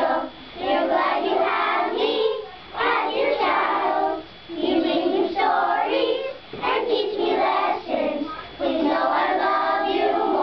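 A class of young children singing a song together, phrase after phrase with short pauses for breath.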